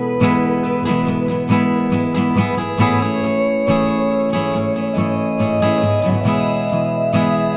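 Instrumental music led by a strummed acoustic guitar, with a steady rhythm of quick strums.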